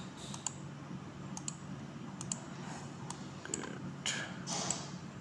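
Scattered single clicks and key taps from someone working a laptop's keyboard and pointer, irregular and a few a second at most, with a short soft hiss about four seconds in.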